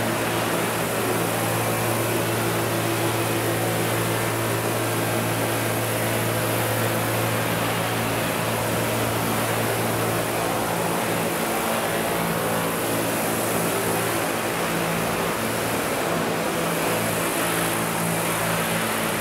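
Two large radio-controlled Vario CH-47 Chinook scale model helicopters flying, with the steady drone of their tandem rotors and drive under a strong high hiss. The deepest hum drops back about ten seconds in.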